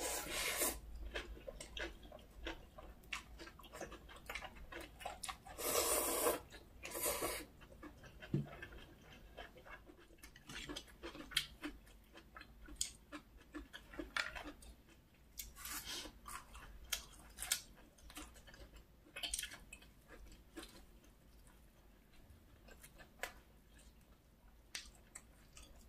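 Close-miked eating sounds from a meal of chewy whelk with bibim noodles and crisp water parsley pancake: steady chewing with many small wet mouth clicks. A few louder noisy bursts come about six and seven seconds in and again near sixteen seconds.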